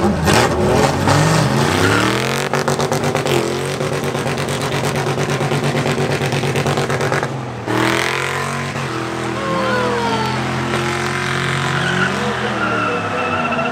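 Drag-racing car engines at full throttle, climbing in pitch as a car pulls away and then holding high. The sound breaks off about halfway through and another engine run climbs again.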